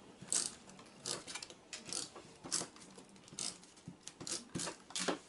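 Hand-held tape-runner glue roller clicking and rattling as it is run across a sheet of paper to lay down adhesive, in a series of irregular short clicks.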